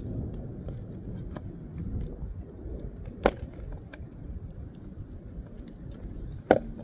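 Two sharp metal taps about three seconds apart, a roofing bar being tapped to work a shingle nail loose, over a steady low background rumble.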